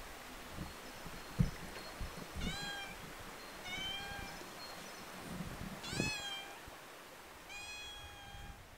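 A cat meowing four times in short, high calls, each under a second and about a second or two apart, with a few low thumps, the loudest near the start.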